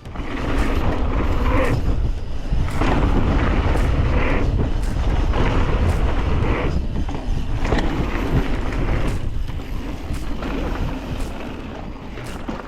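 Wind rushing over the microphone and the rumble of a mountain bike riding fast over dirt jumps, surging in waves with a few short knocks.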